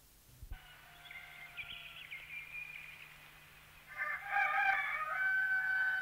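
Roosters crowing, several calls overlapping, getting louder and busier about four seconds in, over a low steady hum.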